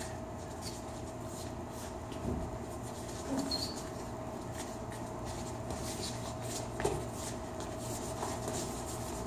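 Boxing sparring: shoes scuffing on a hard floor and a few soft punches landing on gloves, three knocks standing out, over a steady hum.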